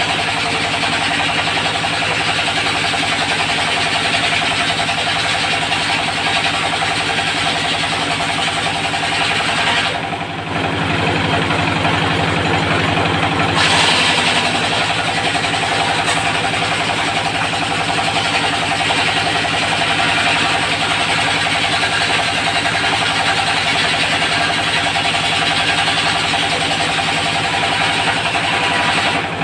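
Diesel engine running steadily, driving a circular-saw sawmill rig. The sound dips briefly about a third of the way in and changes a few seconds later.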